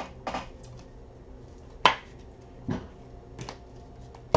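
A few scattered sharp clicks and knocks from things being handled and set down at a desk, the loudest about two seconds in and another sharp one near the end.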